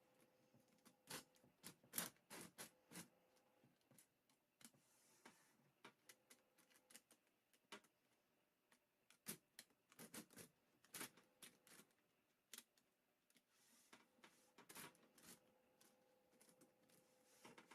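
Faint, irregular clicks and clacks of plastic puzzle pieces as a home-made 22x22x22 Rubik's-type cube is handled and turned, coming in quick clusters with short pauses between them.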